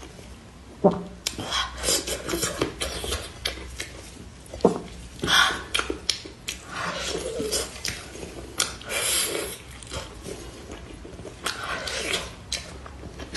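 Close-miked eating sounds: a braised pork knuckle torn apart by plastic-gloved hands, with wet chewing and lip-smacking. It comes as an irregular run of sticky clicks and wet crackles, with a few sharper snaps.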